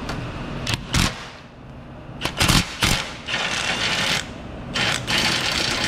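A 3/8-inch impact wrench hammering out the AC compressor's last 12 mm mounting bolt in several short rattling bursts, with a few sharp clicks before them.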